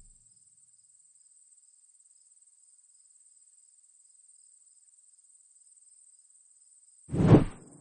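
A steady high-pitched cricket trill over otherwise quiet, then a sudden loud thud about seven seconds in that dies away within half a second.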